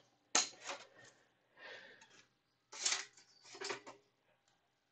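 A computer's DVD drive being ejected and the disc taken out: a series of sharp clicks and knocks, with a short rustling stretch in between.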